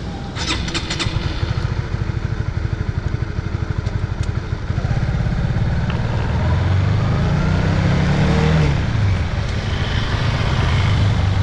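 Honda CB150R's single-cylinder engine running as the bike is ridden, its exhaust pulsing evenly at low revs, then rising in pitch as it accelerates about seven seconds in and easing back about two seconds later. A few sharp clicks sound about half a second in.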